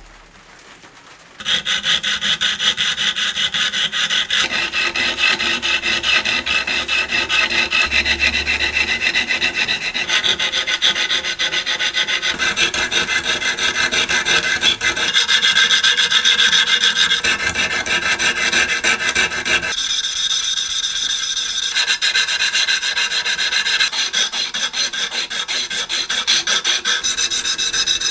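Fast, continuous abrasive rubbing strokes of hand sanding or filing on parts of an old hand drill being restored. They start about a second and a half in, and their pitch shifts every few seconds.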